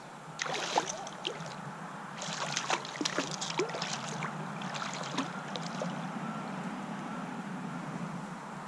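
Shallow stream water sloshing and splashing around a wading angler's legs, in two bursts of splashing full of small clicks and drips in the first few seconds, then a steadier low wash of moving water.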